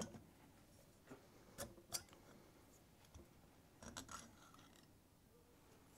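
Faint clicks and light metal scrapes as the air-cooled cylinder barrel of a Braaap ST250 engine is worked up off its studs by hand: a few short ticks, two close together about a second and a half in and a small cluster about four seconds in. Otherwise near silence.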